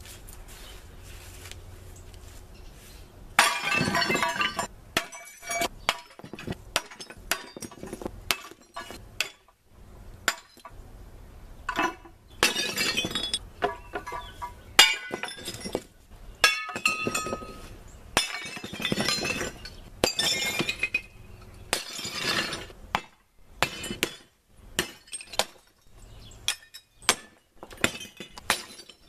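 Sledgehammer smashing a porcelain toilet on plywood: the first blow lands about three seconds in, then blow after blow, many followed by the clinking clatter of shattering porcelain and falling shards. Near the end the strikes come quicker and shorter as the hammer breaks up the pile of fragments.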